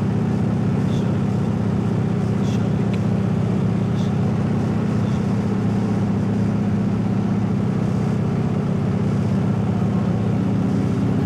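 Small propeller plane's engine and propeller running steadily at cruise, heard from inside the cockpit as a constant low drone.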